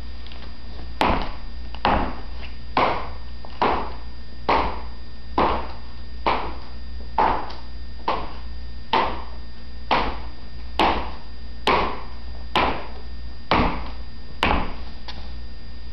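Footsteps of cordovan Allen-Edmonds loafers fitted with metal wedge heel plates and taps on a hardwood floor: a sharp click at each step, at a steady walking pace of about one a second.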